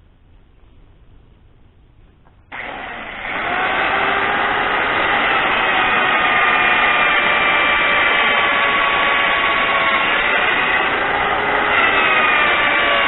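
A motor starts abruptly about two and a half seconds in, picks up a moment later, and then runs steadily and loudly with a whining tone that wavers slightly in pitch.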